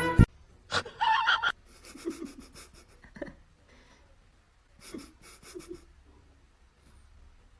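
Breathing or panting in short bursts, several in a row with quiet gaps between them.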